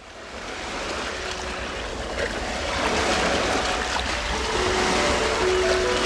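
Sea waves washing, fading up from silence at the start, with a few soft held music notes coming in over them.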